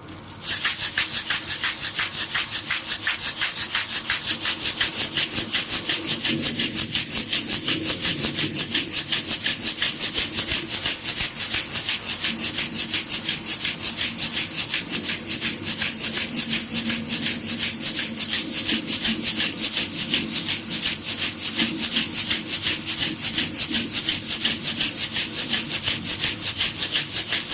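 Baby rattle shaken steadily in a fast, even rhythm, starting about half a second in.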